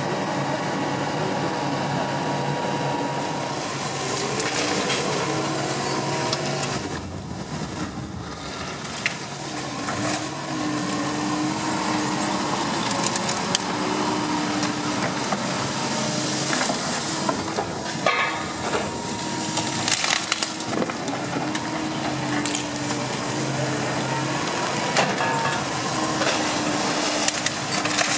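Terex Fuchs MHL 250E material handler running, its hum stepping up and down in pitch as the hydraulics work. Its grapple picks up and drops scrap wood, with repeated cracking, splintering and clattering.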